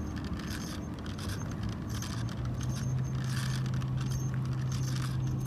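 Measuring wheel rattling and clicking as it is rolled over rough, bumpy ground. A steady low engine hum comes in about two seconds in.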